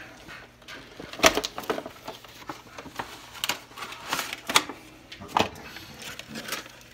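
Cardboard toy-car box being handled and opened, and its clear plastic tray of five die-cast cars slid out: a string of sharp cardboard and plastic clicks and crackles, the loudest about a second in.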